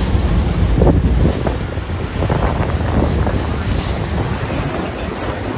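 Wind buffeting the microphone over rushing, splashing water, as heard aboard a moving boat. The low rumble is heaviest in the first second or so and then eases.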